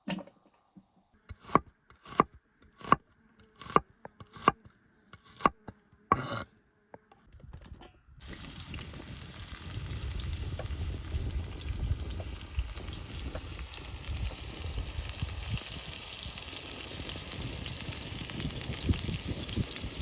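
About ten sharp knocks, spaced a little under a second apart. Then, from about eight seconds in, food sizzles steadily as it fries in a hot pan.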